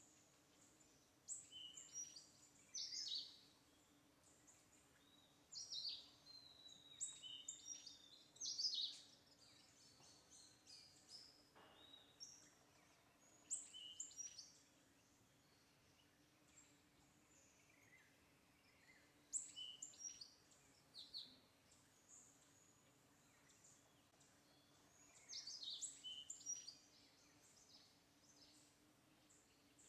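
Birds calling in short clusters of quick, high chirps, many sliding down in pitch, about five bursts a few seconds apart. A faint steady low hum runs underneath.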